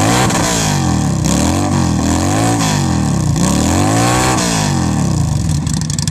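Honda bobber motorcycle engine, fitted with Harley mufflers, revved repeatedly: the exhaust note rises and falls several times in a row.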